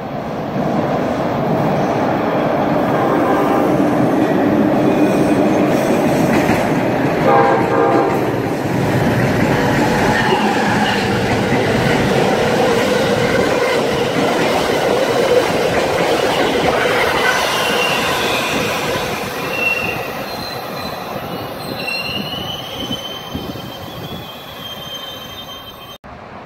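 Amtrak Northeast Regional train passing through a station: a long, loud rush of wheels on rail that fades after about twenty seconds, with high-pitched wheel squeal near the end.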